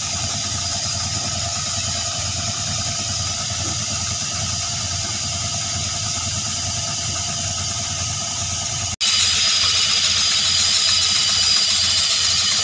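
Tractor engine driving an air compressor, running steadily. About nine seconds in the sound breaks off for an instant and comes back louder, with more hiss.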